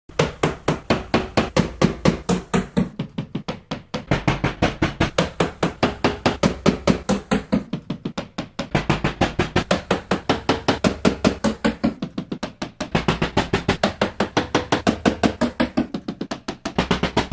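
Rapid, repeated banging strikes, several a second, in a looped clip that restarts about every four seconds, each repeat faster and higher-paced than the last.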